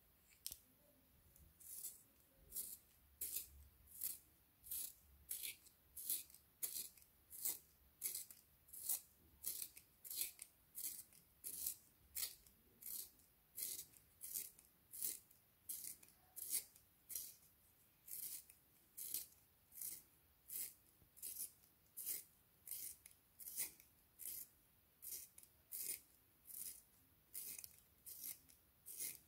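A red wooden pencil being turned in a small blue plastic handheld sharpener, the blade shaving off the wood in a steady rhythm of short scrapes, about one and a half a second, starting about a second and a half in.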